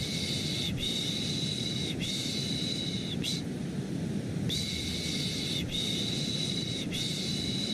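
Rhythmic 'shh' shushing for lulling a baby, in hissing strokes of about a second each: three long shushes and a short one, a pause of about a second, then three more. Underneath, a steady low, deep white-noise rumble.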